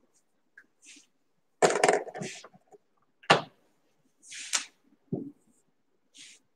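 A few separate knocks and clicks, the loudest about a second and a half in, with short hissing sounds in between, from a person moving about and handling whiteboard markers.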